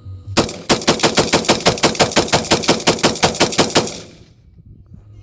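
AR-15 rifle fired semi-automatically as fast as the trigger can be pulled in a quick mag dump: about twenty shots at roughly six a second, lasting about three and a half seconds, then stopping.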